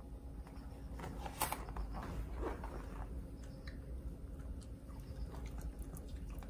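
Faint small clicks and mouth sounds of a poodle taking a bit of soft homemade cottage cheese from a hand and starting to eat it, with a sharp click about a second and a half in.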